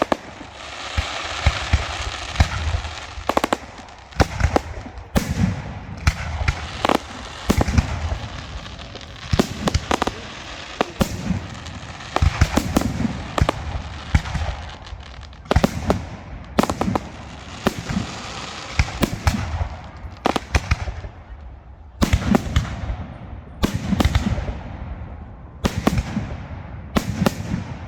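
Aerial fireworks display: shells bursting in irregular volleys of sharp bangs, several a second at times, with crackling and low rumbling echo between them.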